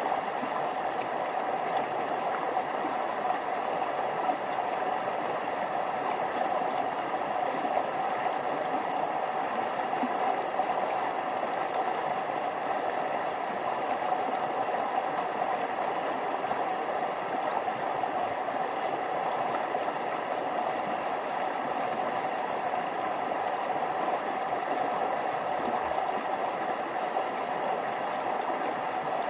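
A small stream flowing over little waterfalls, a steady, unbroken sound of running water.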